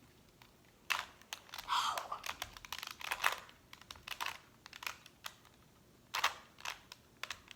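A 2x2 Rubik's cube being twisted by hand: irregular plastic clicks and clacks as its layers turn, in quick runs with short pauses.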